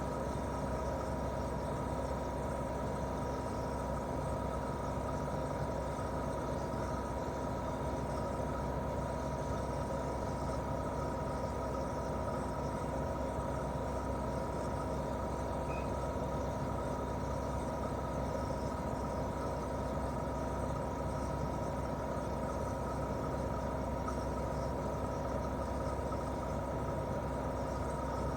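Daikin R28RMV mini-split outdoor unit running steadily in heating mode: its twin-cylinder swing compressor and fan give an even hum with a held tone.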